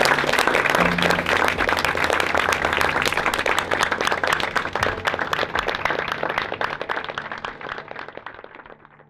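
A crowd applauding with dense, rapid clapping over faint music, fading out over the last few seconds.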